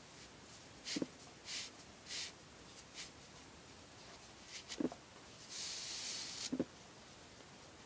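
Knotting cord rustling and hissing as it is threaded and drawn through a knot by hand, with one longer pull lasting about a second near the end. Three short, soft knocks from handling come about a second in, near five seconds and right after the long pull.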